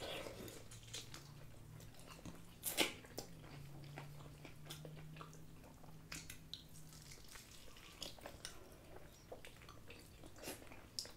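Two people biting and chewing crispy fried chicken wings: scattered faint crunches and wet mouth sounds, with one sharper crunch about three seconds in.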